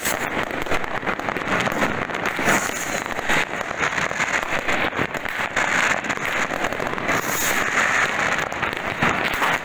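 Fireworks and firecrackers going off all around, with many overlapping bangs, pops and crackles in a dense, unbroken stream.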